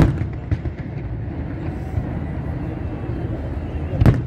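Fireworks shells bursting: a loud bang at the start and another about four seconds later, with a few fainter cracks and a steady low rumble between them.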